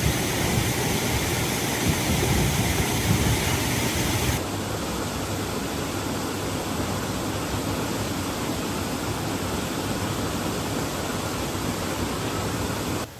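Heavy rain falling as a steady hiss. About four seconds in it changes abruptly to a slightly quieter, duller hiss, and it drops away suddenly near the end.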